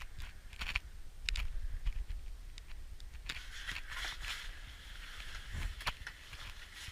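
Irregular scraping, crunching and knocking, like footsteps on rough ground, with a few sharper clicks.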